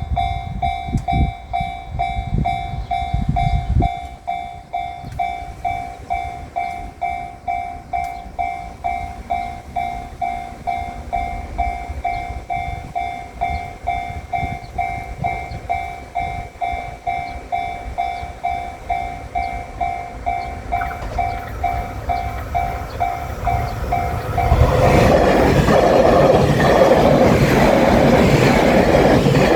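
Japanese level-crossing warning bell ringing steadily, about two dings a second. About 24 seconds in, a train reaches the crossing and its passing rumble and wheel noise drown out the bell.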